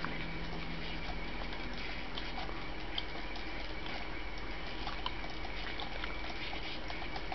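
Steady background static hiss with faint scattered crackles over a low electrical hum.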